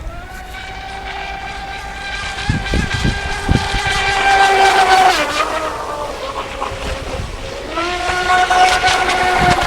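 Electric RC speedboat's brushless motor (2075kv on a 4S battery) whining at speed, its pitch rising at first and holding steady. The whine drops away about five seconds in as the throttle eases, then climbs back up near eight seconds. Wind buffets the microphone with low thumps.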